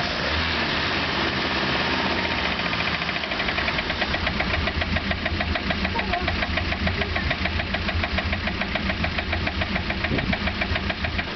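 Mercruiser 3.0 LX inline four-cylinder marine engine running at a steady speed with a fast, even rattling clatter over it. The rattle is the fault the owner is trying to find. It grows more distinct a few seconds in.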